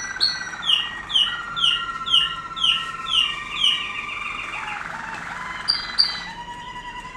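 Canaries singing: a run of bright, falling notes about two a second over a lower, steady trill. A buzzing roll and two sharp high notes follow, then a lower, bubbling trill near the end.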